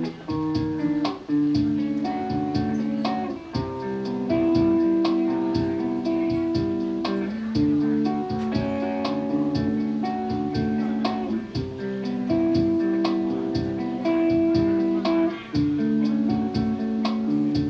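Hollow-body guitar played solo, strummed chords changing every second or so in a steady rhythm, with no singing.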